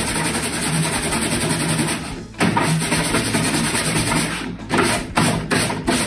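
Hand brush scrubbing the mesh filter of a split-system air conditioner in scratchy back-and-forth strokes, with a short pause about two seconds in and shorter, separate strokes near the end. Background music with a beat plays underneath.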